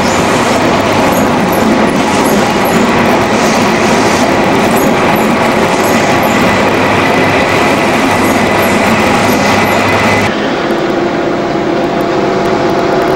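An InterCity 125 high-speed train runs past close by, its coaches rolling over the track with a loud, steady rumble and a faint high tone. About ten seconds in, the sound changes as the rear diesel power car passes, bringing a steadier engine hum.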